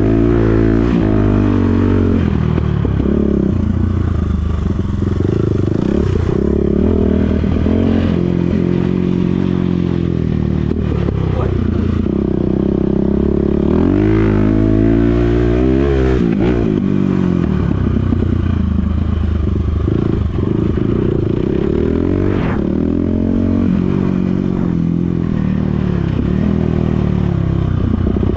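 Enduro dirt bike engine being ridden hard, revving up and dropping back over and over as the throttle opens and closes and the gears change, with scattered knocks and rattles.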